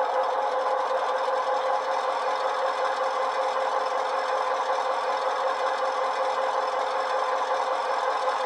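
Sound decoder (ESU LokSound v5) in an HO-scale Walthers GP9 model locomotive playing its diesel engine sound, running steadily under throttle. It comes through two tiny sugar-cube speakers and sounds thin, with little bass.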